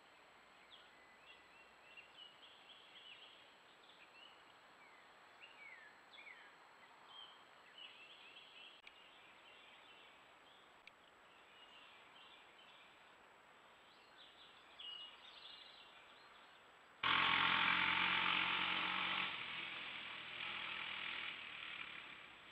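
Birds chirping faintly against a quiet outdoor background. About three-quarters of the way in, a sudden, much louder, harsh sound with a low buzz beneath it cuts in for about two seconds, comes back more weakly and fades.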